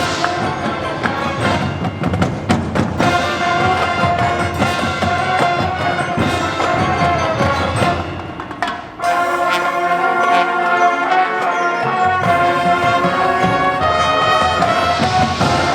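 Marching band of brass and percussion playing a concert piece. About nine seconds in, the sound briefly drops, then continues for about three seconds without its lowest bass notes before the full band comes back in.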